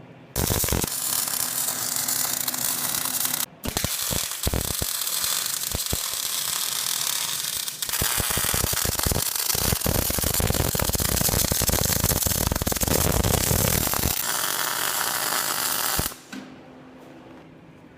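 Electric arc welding on steel: the arc strikes and crackles and sizzles steadily as a bead is run. It breaks off for a moment a few seconds in, restarts, and cuts out sharply near the end.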